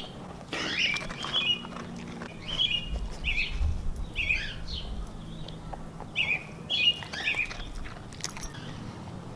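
A bird chirping over and over, short high calls that bend in pitch, about one every second, with faint snuffling and rustling as a Siberian husky noses through a fleece snuffle mat.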